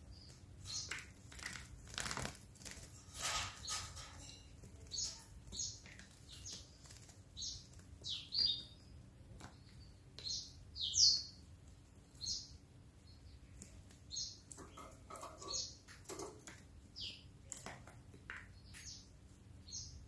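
Canary giving short, high chirps about once a second, the loudest about 11 seconds in, with a few brief flurries of wing flapping early on.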